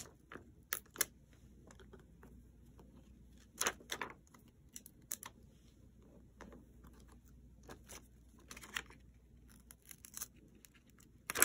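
Faint, scattered crinkles and clicks of adhesive rhinestones being peeled off their plastic sticker sheet and pressed onto a paper bag.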